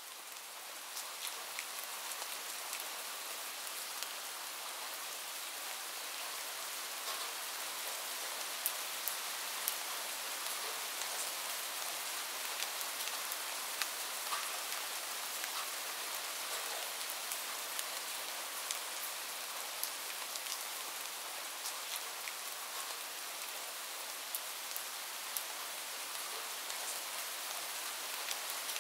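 Steady light rain: an even hiss of falling rain with individual drops tapping sharply now and then, fading in over the first second.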